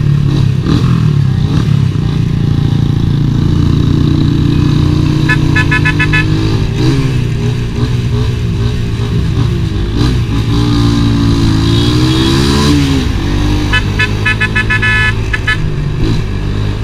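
Motorcycle engine running at road speed, its pitch rising and falling as the throttle is worked. A horn sounds in a quick series of short toots about five seconds in, and again in another quick series about fourteen seconds in.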